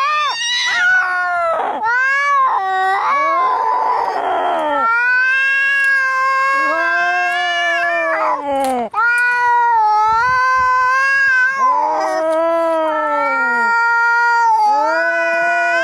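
Domestic cats yowling in a fight: long, drawn-out wails that rise and fall in pitch, with a harsh hiss about four seconds in.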